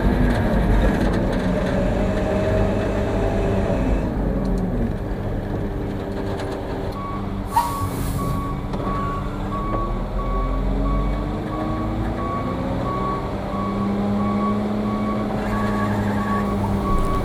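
Concrete mixer truck's diesel engine running and changing speed as the truck manoeuvres, with a short air hiss from the air brakes about halfway through. The truck's backup alarm starts beeping at the same moment, in a steady even rhythm, as it reverses.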